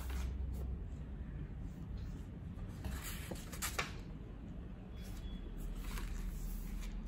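Quiet room tone with a steady low hum and a few soft clicks and rustles, the clearest about midway.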